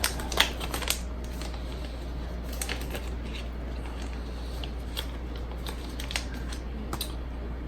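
Faint scattered clicks and taps of small parts being handled as a replacement iPod Classic display is fitted into the opened case, over a steady low hum.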